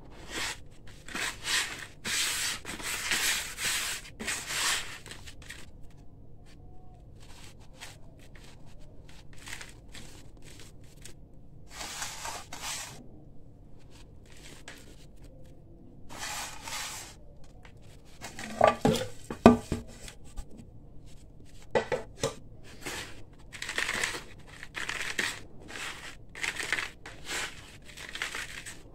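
Gritty crunching and scraping of dry crumbled concrete grit and dust as hands dig into it, squeeze it and rub it in a plastic bucket, in repeated strokes with pauses between. A few sharper, louder knocks come a little after halfway.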